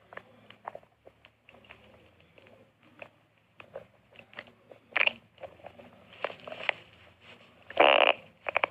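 Stomach growling: irregular small gurgles and pops, with a louder gurgle about five seconds in and the loudest, longer gurgle near the end.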